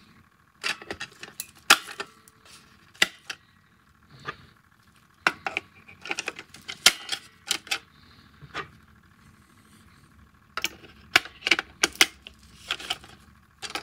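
Batteries being fitted into the plastic battery compartment of an animated scarecrow decoration: irregular sharp clicks and taps of batteries against plastic, with a quieter stretch about two-thirds of the way in.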